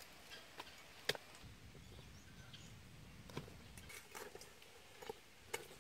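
Quiet background with a few faint, short clicks, the sharpest about a second in.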